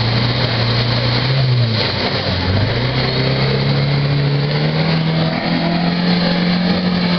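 A 4x4 SUV's engine revving under load as it drives through deep mud and water, with the splashing of mud thrown up by the wheels. The engine pitch dips about two seconds in, then climbs and holds higher from about five seconds in.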